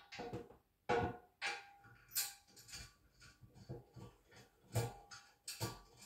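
Steel bolts, lock nuts and hitch parts clinking and tapping against the steel fifth-wheel hitch frame as they are fitted by hand, in irregular sharp clinks, a few with a brief metallic ring.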